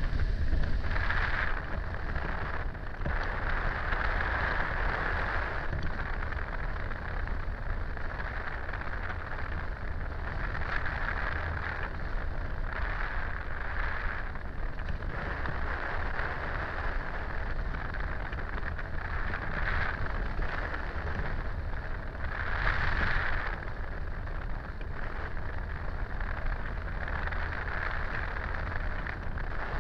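Wind rush from the airflow around a hang glider in flight, buffeting the microphone: a steady deep rumble under a hiss that swells and fades every few seconds, briefly loudest about three quarters of the way through.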